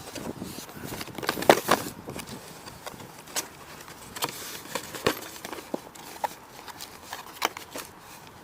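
Cardboard box being opened and its packed contents handled: irregular rustling and scraping with sharp clicks and taps. The loudest burst of handling comes about a second and a half in.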